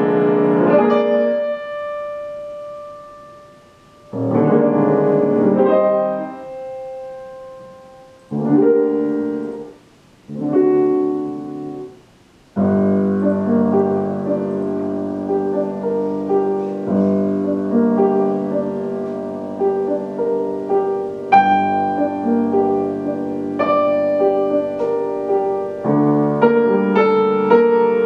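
Grand piano being played: four short phrases over the first twelve seconds, each left to ring and die away into a brief pause, then continuous, flowing playing from about twelve seconds in.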